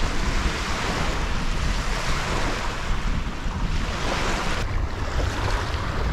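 Strong wind buffeting the microphone: a steady rushing noise with a low rumble that rises and falls with the gusts.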